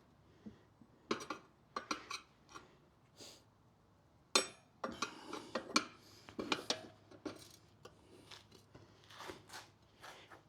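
Metal tire levers clinking, knocking and scraping against the wheel rim as the bead of a new rear motorcycle tire is worked onto the rim by hand. Irregular sharp clicks, the loudest about four and a half seconds in, with some scraping in the middle.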